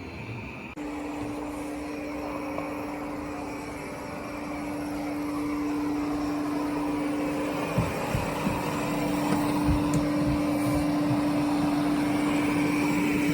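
Airzeen R7 robot vacuum cleaner running: a steady motor hum with a whirring suction noise that kicks in about a second in and grows gradually louder, with a few faint low knocks midway.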